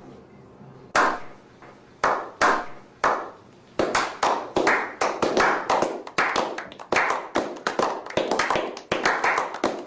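Crunching of a crispy corn dog's batter being bitten and chewed close to the microphone. It starts with a sharp crunch about once a second, then speeds up to two or three crunches a second.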